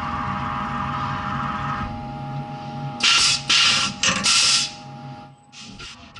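Skyfire SVM1 CNC milling machine humming steadily, then three short, loud bursts in quick succession about three seconds in, followed by a few fainter ones, as a tool is released and swapped by hand in the spindle during a manual tool change.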